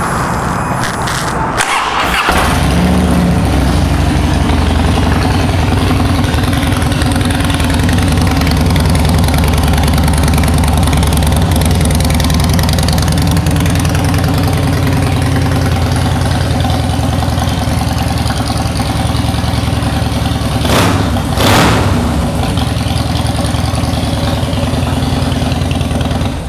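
2009 Harley-Davidson Cross Bones' 96-cubic-inch V-twin engine starting on the electric starter, catching about two seconds in and then idling steadily. Two brief sharp sounds stand out about 21 seconds in.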